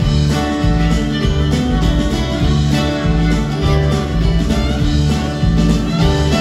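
Live string band playing: fiddle over upright bass and drums, with a steady pulsing bass line.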